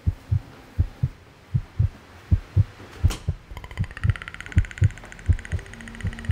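Heartbeat sound effect: low lub-dub double thumps, one pair about every three-quarters of a second. About halfway through, a short whoosh comes in, followed by a high, fast-pulsing buzzing tone.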